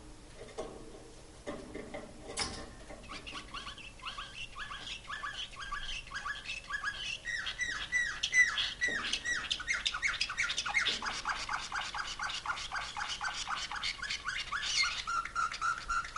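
Slavujar canary singing a nightingale-style tour song. After a few scattered notes, it settles into long runs of quickly repeated falling notes that speed up into rapid rolls, and ends on a fast, even repetition of one note.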